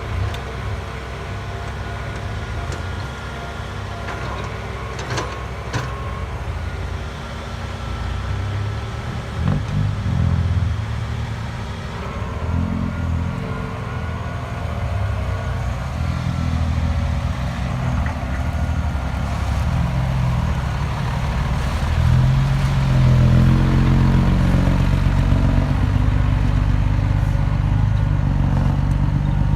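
Diesel engine of a Hitachi EX120 excavator running under changing load as it digs, with a few knocks in the first third. It grows louder and deeper about three quarters through.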